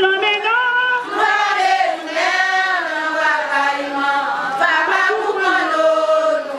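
Voices singing a chant-like melody, unaccompanied, with long held notes that glide up and down in pitch.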